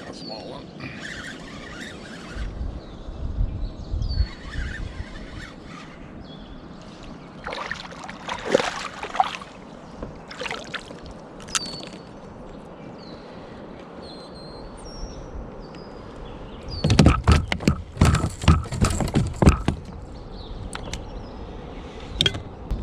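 Kayak sounds on the water: a paddle moving water and knocking against the hull, with a run of loud sharp knocks near the end.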